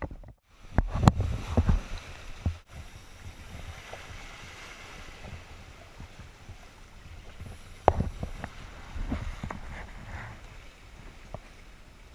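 Wind buffeting the microphone over water lapping in a shallow rock pool, with scattered knocks and thumps, the loudest about a second in and near eight seconds.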